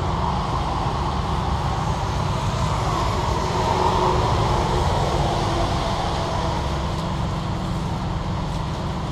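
Steady rumbling background noise, even throughout with no distinct knocks or clicks; the paint roller on the glass is not picked out.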